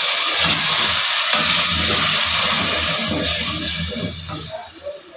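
Water just poured into a pot of hot oil-fried dal and masala, hissing loudly and slowly dying away over a few seconds.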